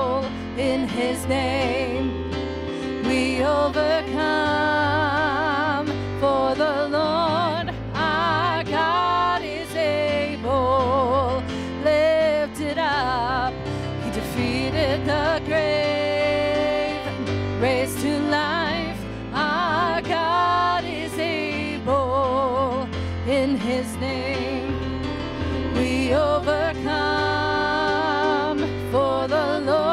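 Contemporary worship song sung by two female voices, a woman and a girl, with instrumental backing and a steady bass line; the sung notes waver with vibrato.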